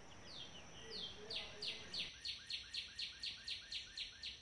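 A bird calling in the background: a faint, rapid series of short descending chirps, about four a second, starting about a second in, growing louder and stopping just before the end.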